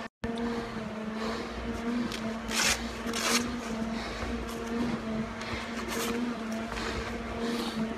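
Steady hum of a stair-climber machine's motor, with a few sharp hisses of air drawn through a firefighter's SCBA face-mask regulator as he breathes. The sound drops out briefly at the very start.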